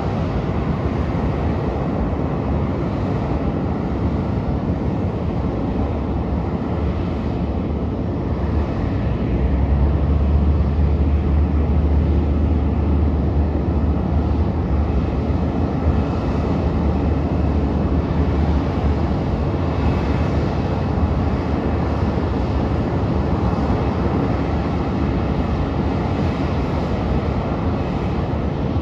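Boeing 737 jet engines idling on a taxiway: a steady, dense rush of jet noise. A deeper rumble swells in for about ten seconds near the middle, and a faint thin whine comes through in the second half.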